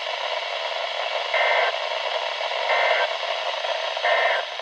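NOAA Weather Radio static with three short bursts of two-tone digital warble, about a second apart: the Emergency Alert System end-of-message (EOM) data burst, sent three times to close the weekly test.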